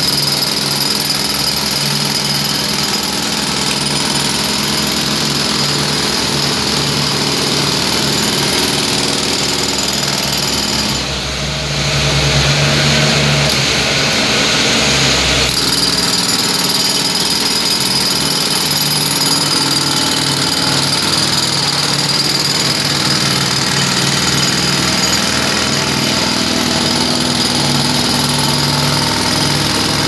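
Pneumatic jackhammer breaking up street asphalt, hammering loudly and continuously at a rapid rate, with a brief dip and change about eleven seconds in before it carries on.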